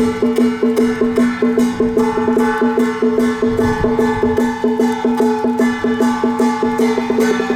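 Traditional temple festival music: held pitched notes with a higher melody line moving above them, over a quick, even wood-block beat.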